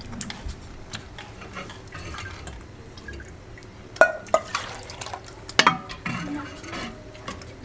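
Tableware clinking and knocking as people eat from clay bowls, with soft handling noise between; the sharpest clinks come about four seconds in and again near six seconds.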